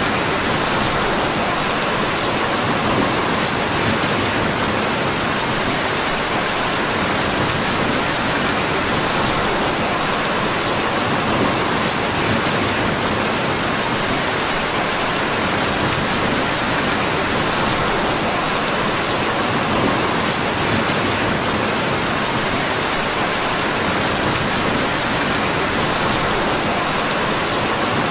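Steady rain falling, an even hiss with scattered faint ticks.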